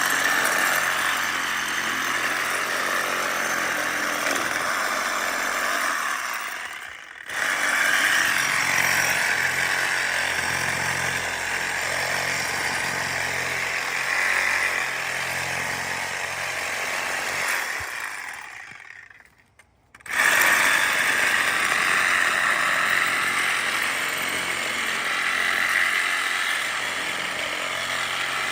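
DeWalt cordless reciprocating saw with a Diablo pruning blade cutting through branches. It runs in three long cuts, with a brief stop about seven seconds in and a longer pause of over a second about two-thirds of the way through.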